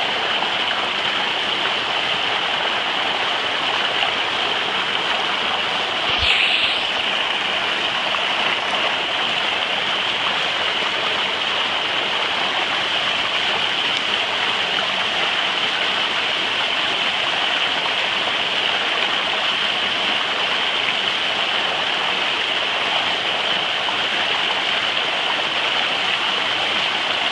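Water rushing steadily down a plastic water slide and splashing around a rider's foot, close up. There is a brief knock about six seconds in.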